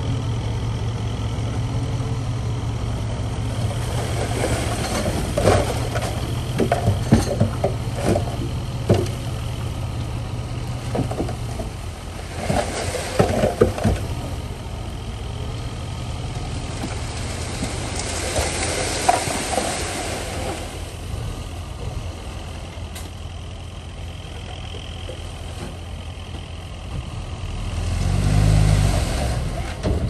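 Heavy diesel earthmoving machinery at work: an engine running steadily with a series of clanks and knocks in the first half, two spells of hissing, and the engine revving up near the end.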